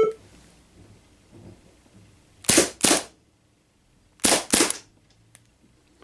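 Umarex Beretta M9A3 CO2 BB pistol firing two double taps: two quick shots about a third of a second apart, then after a pause of under two seconds two more.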